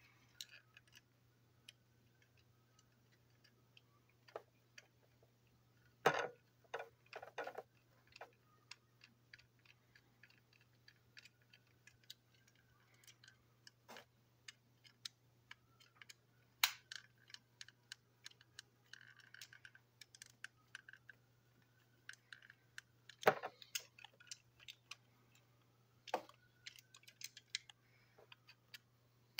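Small plastic and metal parts of a toy train engine being handled and taken apart on a desk: scattered clicks and taps, with louder knocks about six seconds in and again near the end.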